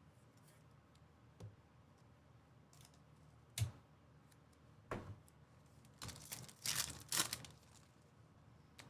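Trading cards and a foil pack wrapper being handled on a table: a few sharp taps and clicks, then a cluster of crackling and crinkling from about six to seven and a half seconds in as the pack is torn open and the cards are pulled out.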